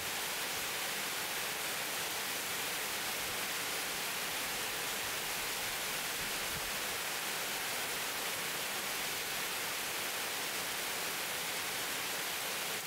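Steady rain falling on dense trees and bushes: an even hiss that stays the same throughout, with no single drops standing out.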